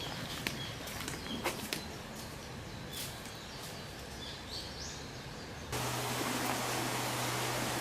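Outdoor ambience with a few scattered footsteps and short bird chirps. A little over five seconds in, it cuts abruptly to a louder, steady hiss with a low, steady hum underneath.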